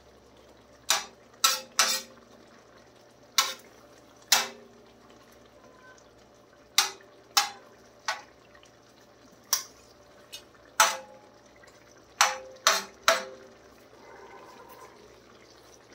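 Metal spatula clanking and scraping against a large steel tawa while stirring fish in a watery gravy. There are about a dozen sharp clanks at irregular intervals, some ringing briefly.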